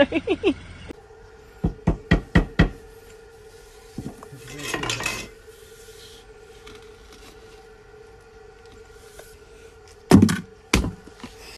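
A metal hand trowel tapping and scraping packed damp sand: a quick run of five sharp knocks, a short scrape, then two more knocks near the end.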